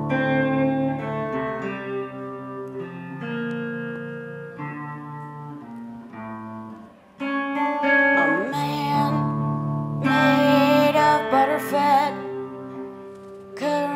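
Solo electric guitar playing slow, ringing chords, joined about eight seconds in by a woman singing over it.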